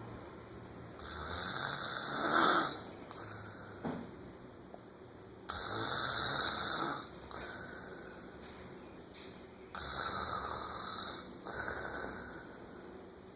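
A man snoring in his sleep: three loud snores about four seconds apart, each lasting about a second and a half, with a softer breath out after each.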